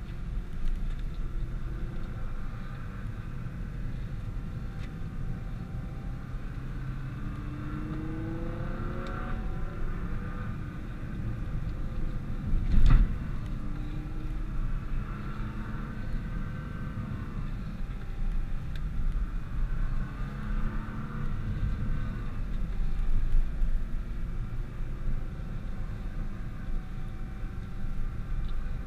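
Nissan GT-R driving with heavy low road and engine rumble; the engine note climbs as it accelerates about a quarter of the way in, then rises and falls twice more later. A single sharp knock about halfway through is the loudest moment.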